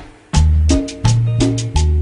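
Background music with a steady beat: a Latin-style track with a strong bass line and regular percussive hits, starting suddenly about a third of a second in.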